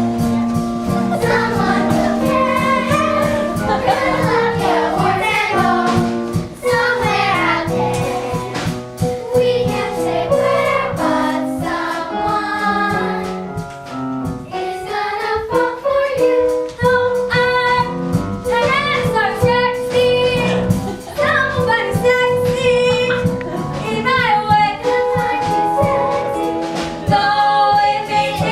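Young voices singing together in a stage musical number over instrumental accompaniment, with a long held note about halfway through.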